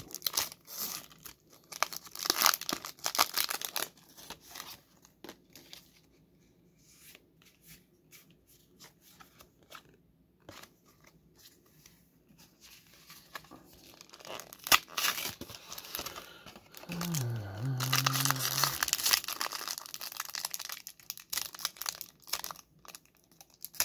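Foil wrapper of a Pokémon card booster pack being torn open and crinkled, in rustling bursts near the start and again later, with a quieter stretch of soft card handling and clicks in between. A short low hum from a voice comes about two-thirds through.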